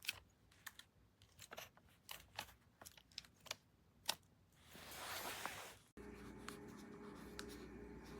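Faint scattered clicks and taps for about four seconds, then a brief rustling hiss lasting a little over a second. It cuts off sharply and a steady low hum follows.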